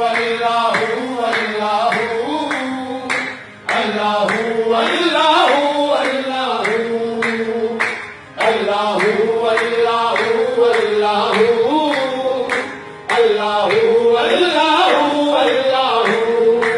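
Qawwali party singing in chorus with steady rhythmic hand clapping, about two to three claps a second. The singing comes in phrases of several seconds, each ending in a brief drop before the next begins.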